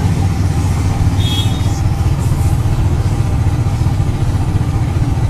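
A small vehicle engine running steadily at low road speed, a continuous low throbbing rumble.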